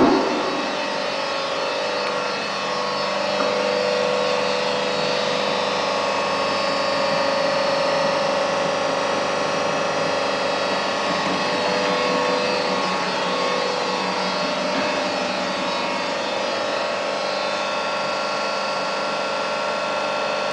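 Ernst Julius double decoiler running under power: a steady machine hum with a steady whine, swelling a little about three seconds in.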